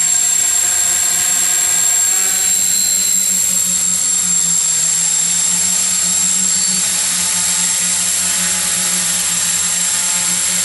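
Hexacopter's six propellers and brushless motors whirring steadily as it changes altitude in GPS position hold: a continuous high hiss over a steady low hum.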